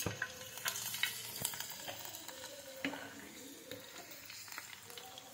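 A papad frying in shallow hot oil: a sharp crackle as it goes into the pan, then steady sizzling with scattered small pops while a spatula presses it down.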